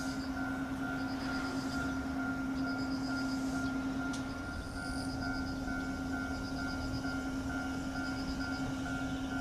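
Electric train giving a steady hum at one constant pitch, with no pass-by rise or fall, over a low rumble. A rapid high ticking chirp repeats about every second and a quarter above it.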